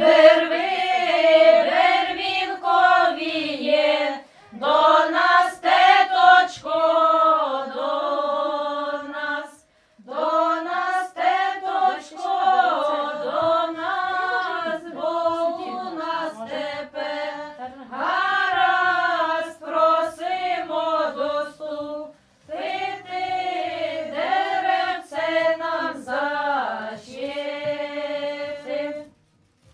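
A small group of women singing a traditional Ukrainian wedding song unaccompanied, in long phrases broken by short pauses for breath.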